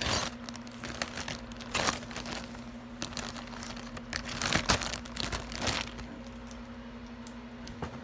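Crinkling rustles and light clicks of jewelry and its wrapping being handled and sorted, busiest in the middle and quieter near the end, over a faint steady hum.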